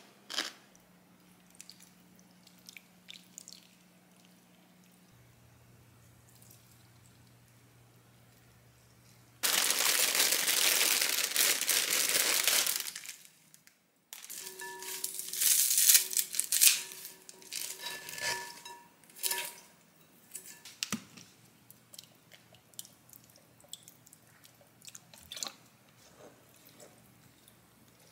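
Handling sounds in a kitchen: light clicks at first, then about four seconds of steady running water. After that comes a plastic bag crinkling loudly as a bunch of minari (water dropwort) is handled over a glass bowl, followed by quieter rustling and clicks of hands moving the stems.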